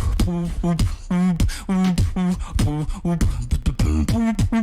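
Beatboxing: a steady rhythm of sharp vocal drum clicks and hits, with short hummed or sung pitched notes in between.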